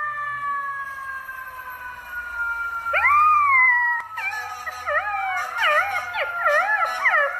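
Dog howling: a long, slowly falling note, then a rising howl about three seconds in, then a run of wavering howls that overlap, as if two voices, toward the end.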